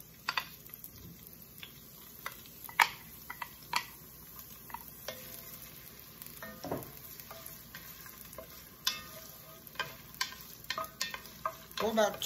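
Chopped onions sautéing in olive oil in an enamelled pot, a quiet steady sizzle, while a wooden spoon stirs them and knocks against the pot in sharp, irregular clicks.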